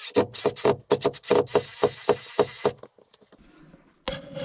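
A screw being driven into a wall plug in a brick wall: a quick series of about ten sharp knocks, roughly four a second for nearly three seconds, then one more knock near the end.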